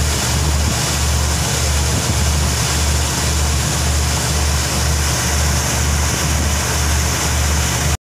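A river taxi boat's engine running steadily under way, heard from on board: a low throb pulsing about twice a second under a steady rush of wind and water noise. The sound drops out for an instant at the very end.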